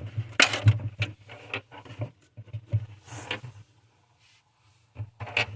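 Small irregular metal clicks and taps from a screw and ratchet nut driver being worked on a refrigerator evaporator fan mount, over a low steady hum. The clicks pause briefly about four seconds in and start again near the end.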